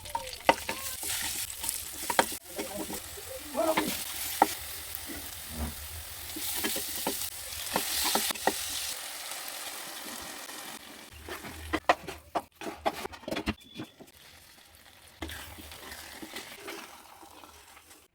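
Food frying in hot oil in a pot, sizzling while it is stirred, with a spoon clicking and scraping against the pot. The sizzle fades about halfway through, leaving occasional clinks and scrapes.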